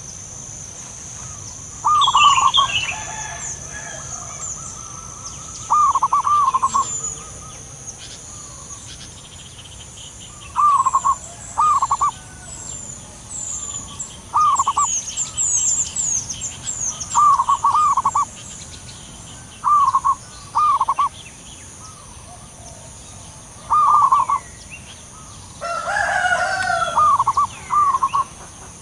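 Zebra doves calling back and forth in the wild, each call a short burst of rapid staccato cooing notes, repeated every couple of seconds. Other small birds chirp high-pitched over a steady high hum.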